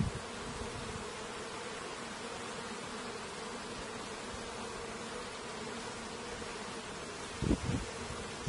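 Honeybees buzzing in a steady, dense mass hum, with a few low bumps near the end.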